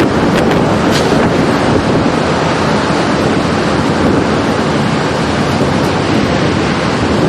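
Steady, loud rushing noise.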